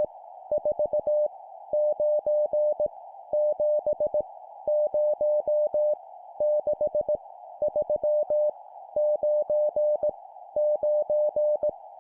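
Morse code (CW) sent as a single steady mid-pitched tone keyed on and off at 17 words per minute, spelling random numbers in short groups separated by pauses, over a faint hiss.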